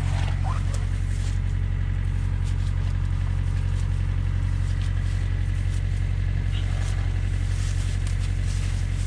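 Tractor engine idling steadily, a low even running note that holds at one speed, with a few faint knocks and rustles close by.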